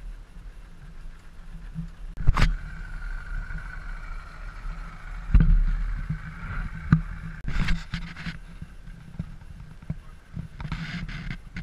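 Outboard motors on rigid inflatable boats running at low speed: a steady low rumble with a thin whine in the middle few seconds. Several sharp knocks or bumps break in, the loudest a little over two seconds in.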